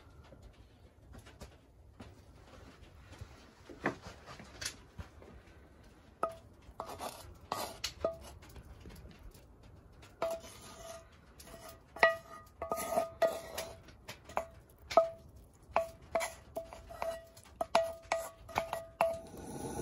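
Wooden spatula scraping and knocking against a cast iron skillet while serving fried mushrooms. There are a few light clicks at first, then a quick run of short knocks with a brief metallic ring through the second half.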